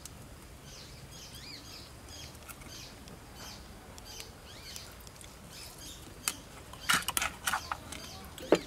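Faint bird chirps in the background, then from about six seconds in a wooden pestle knocks several times against a clay mortar.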